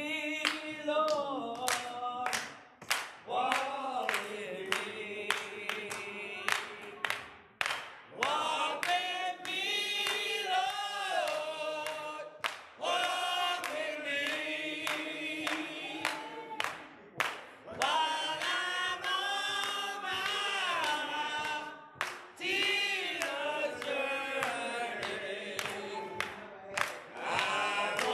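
A small group of men and women singing together unaccompanied, with handclaps keeping a steady beat.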